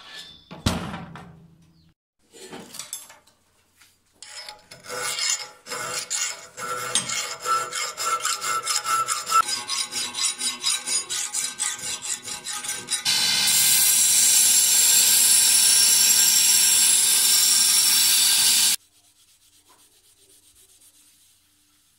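Quick back-and-forth hand-rubbing strokes of an abrasive over a forged steel herb chopper, about three to four strokes a second. After that comes a loud, steady hiss lasting about five seconds that cuts off suddenly. A single knock is heard near the start.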